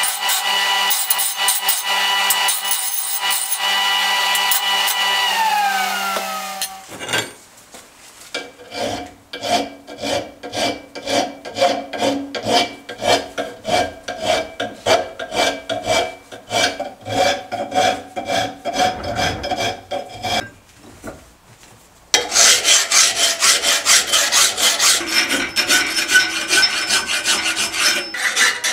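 Bench grinder running with a steady whine while a steel bar is ground, then switched off so its pitch falls away. Then a hand file is drawn back and forth over steel clamped in a vise in steady, even strokes, which become louder and quicker after a short pause about two-thirds of the way through.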